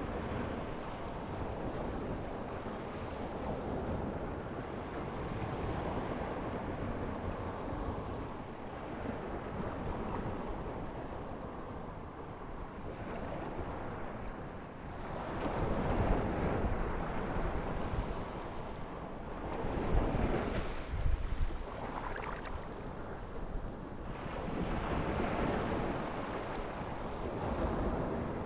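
Ocean surf: a steady wash of waves with three surges where breakers crash louder in the second half.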